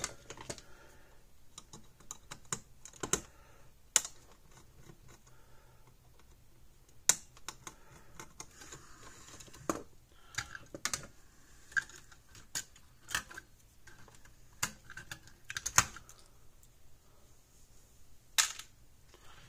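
Irregular sharp clicks and taps of a circuit board and hand tools being handled in a plastic electric-fence-energizer case, as the board's wire connectors are pulled off and the board is lifted out.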